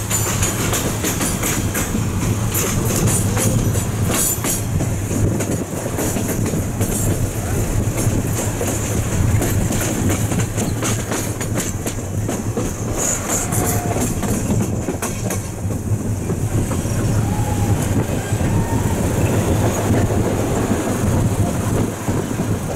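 Passenger train coach running on the rails, heard at an open window: a steady rumble of wheels with clickety-clack over the track, and a quick run of sharp clicks in the first five seconds.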